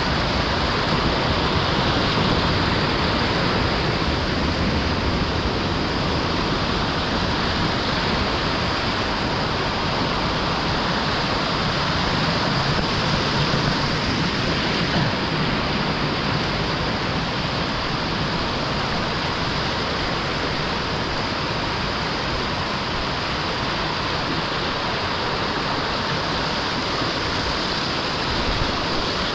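Steady rush of a river in flood running through a cave, the water high and flowing fast after a storm.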